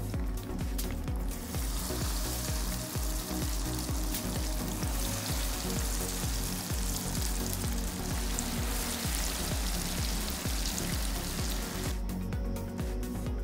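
Breaded chicken pieces sizzling in hot frying oil: a light crackle that swells into a dense, loud sizzle about a second and a half in, as fresh pieces go into the oil, then cuts off near the end.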